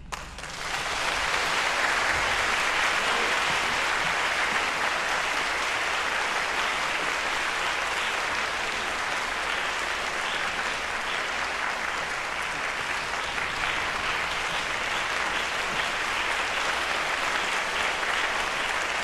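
Audience applause: a large crowd clapping, which breaks out suddenly, swells within the first second and then holds steady.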